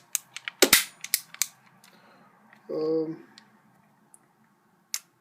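Series of sharp metallic clacks and clicks from a green-gas blowback Sig Sauer BB pistol's slide and action being worked, several in quick succession in the first second and a half, then two lone clicks near the end. A short hummed voice sound comes in the middle.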